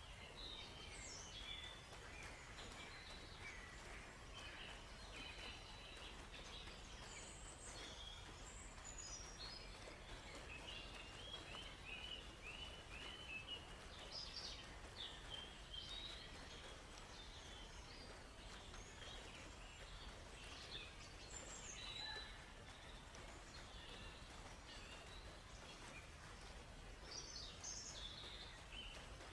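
Several forest birds chirping and singing faintly, with short whistled calls scattered throughout and a quick trill about halfway through, over a steady soft background hiss.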